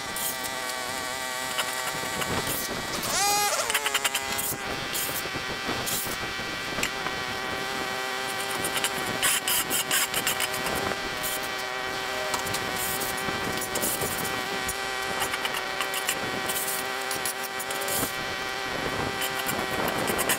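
Small gas engine of lawn equipment running with a steady whine, its pitch rising briefly about three seconds in.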